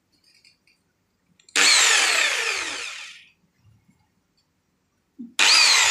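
Daewoo electric jigsaw switched on briefly twice without cutting anything. Each time the motor comes in at full speed and then winds down with a falling whine over a second or two: once about a second and a half in, and again near the end.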